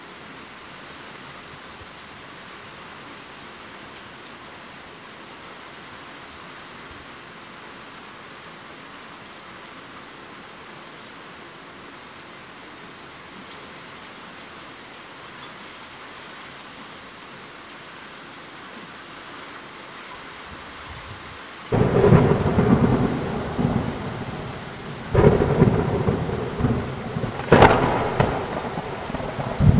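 Steady rain hissing, then about twenty seconds in a sudden loud rumble of thunder that rolls on and swells again twice near the end.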